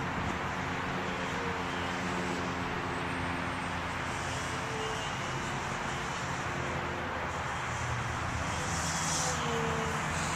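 Small delta-wing RC plane's motor and propeller buzzing steadily in flight, its pitch wavering a little, over a constant rush of wind.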